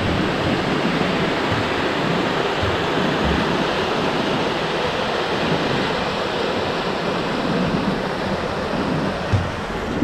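Mountain stream rushing over granite rock ledges: a steady, even rush of water.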